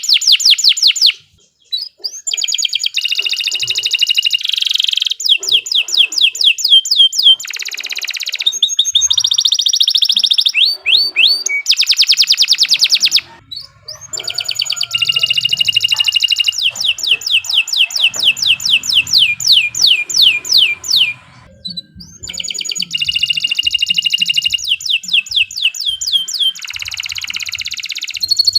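Domestic canary singing a long, continuous song of fast trills and rapidly repeated chirp phrases, with three short breaks between phrases.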